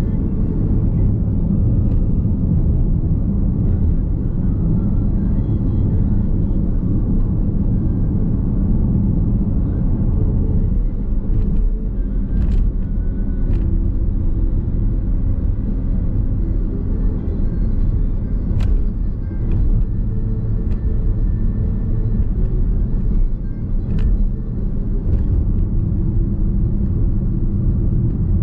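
Steady low road and tyre rumble inside the cabin of a moving Nissan X-Trail Hybrid, with a few faint sharp ticks scattered through it.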